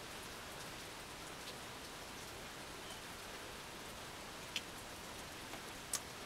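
Steady rain falling outside, heard from indoors as an even hiss, with two faint ticks about four and a half and six seconds in.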